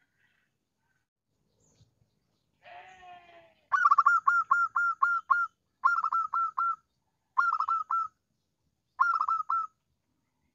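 Zebra dove (perkutut) song, used as a lure call to draw rival birds. A soft gliding note comes first, then four bursts of rapid, clipped cooing notes with short pauses between them. The first burst runs about nine notes and the later ones four or five.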